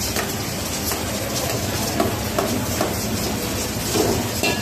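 Chicken pieces and whole tomatoes sizzling steadily in hot fat-tailed sheep fat in a steel karahi wok, with a few short knocks of a metal ladle against the pan.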